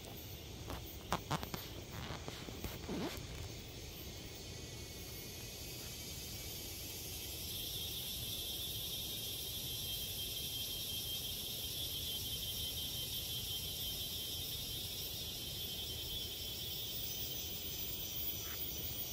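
Forest insects chirring in a steady high-pitched chorus that swells from about seven seconds in, with a few sharp clicks and snaps in the first three seconds.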